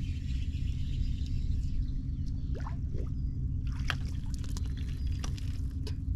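Outdoor sound on the water: a steady low hum under scattered light clicks and small trickling, splashing water sounds, which start about halfway through.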